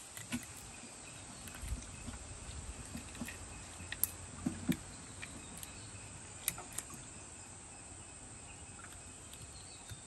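Steady high-pitched insect buzzing, with scattered small clicks and taps as hands work through a nylon gill net, a few sharper ones about four to five seconds in.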